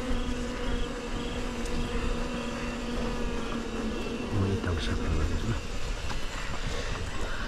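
Asian honeybees (Apis cerana) buzzing in a steady, many-bee hum.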